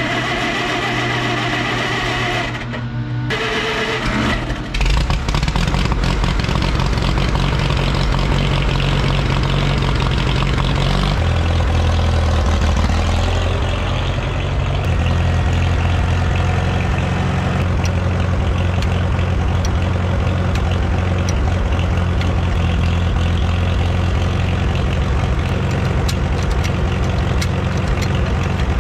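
Old tractor engine cranked by its starter, jumped from a booster pack, for about three seconds, then catching about five seconds in and running steadily. Around eleven seconds in the engine note steps up and it keeps running at that speed.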